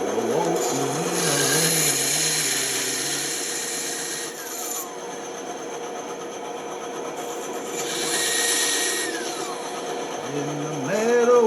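Bandsaw running, its blade cutting into wood twice, each cut a couple of seconds of hissing, ending as the pitch falls away.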